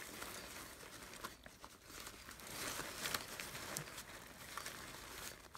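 Faint rustling and crinkling of an airblown inflatable's thin fabric being handled, with a few light clicks.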